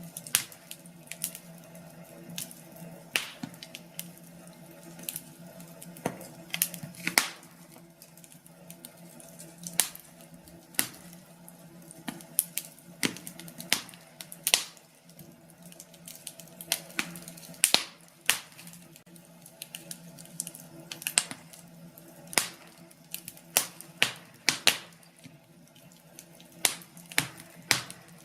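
Wood fire in a fireplace crackling, with irregular sharp pops, some much louder than others, over a low steady hum.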